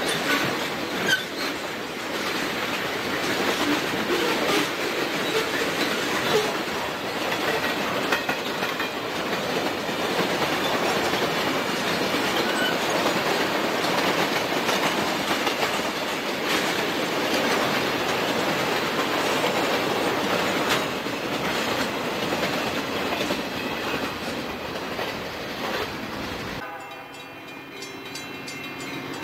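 CSX freight cars rolling past close by over a grade crossing: a steady rumble of wheels on rail with clickety-clack over the joints. About 26 seconds in the sound cuts to a quieter scene where the horn of an approaching VIA Rail F40PH-led passenger train sounds in the distance.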